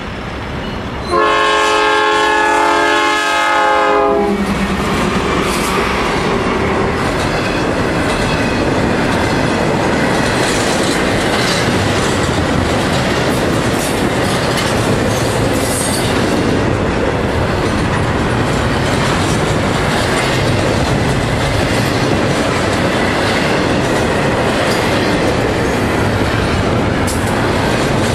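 A Norfolk Southern freight locomotive's horn blows one blast of about three seconds, several notes sounding together, about a second in as the train nears the grade crossing. The locomotive then passes close by, and double-stack intermodal well cars roll past with a steady rumble of wheels on rail and a rhythmic clickety-clack at the rail joints.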